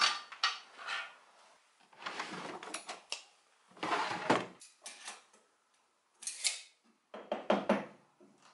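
A run of separate workshop handling sounds with short pauses between: a Metabo table saw's sliding crosscut table pushed along its rails, a cabinet drawer slid open, and the saw's rip fence clicked and clunked into place on the table. The saw itself is not running.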